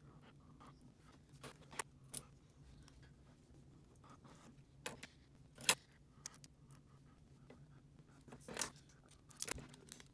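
Scissors snipping a strip of clear anti-static adhesive tape, and the tape crackling as it is handled and pressed down: a few soft, scattered clicks and rustles, the sharpest a little past halfway.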